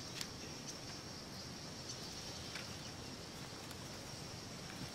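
Insects keeping up a steady high-pitched drone, with a few faint clicks over a low background hiss.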